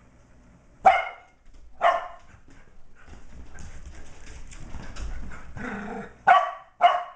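Shetland sheepdogs barking: four short, sharp barks, two a second apart near the start and two close together near the end, with softer dog noises in between.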